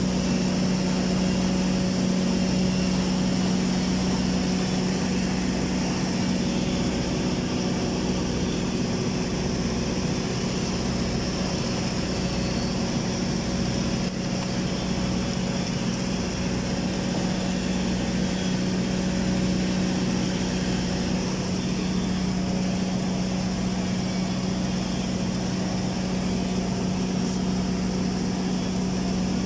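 Steady hum of running welding equipment, with a low throb pulsing about once a second and no change in level.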